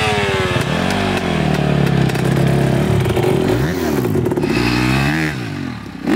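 Dirt bike engine revving and easing off: the pitch drops over the first second, holds steady, then rises and falls several times.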